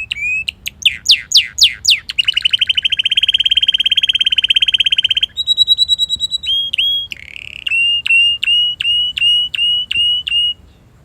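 Male red canary singing a varied song: a string of quick upswept whistled notes, a run of rapid falling sweeps, then a long fast rolled trill of about three seconds, followed by higher notes, a short buzzy phrase and another string of upswept notes about two or three a second, stopping shortly before the end.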